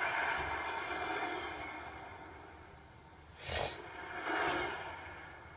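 Cinematic whoosh-and-swell sound design from a documentary's opening titles, heard through computer speakers. A sudden swell fades over about two seconds, a short sharp whoosh comes about three and a half seconds in, and a second swell follows.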